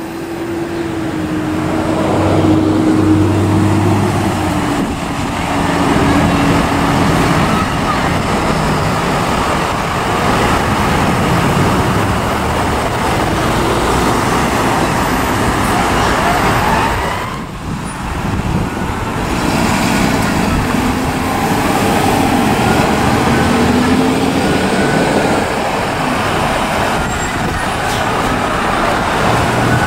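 Road traffic noise from vehicles passing close by, with engines running and tyres on the road. An emergency siren wails faintly in the second half.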